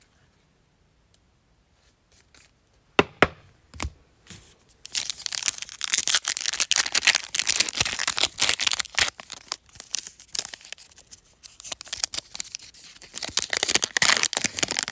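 Foil NBA Hoops Premium Stock card pack being torn open and crinkled by hand. A few sharp clicks come about three seconds in, then dense crackling of the foil wrapper from about five seconds on.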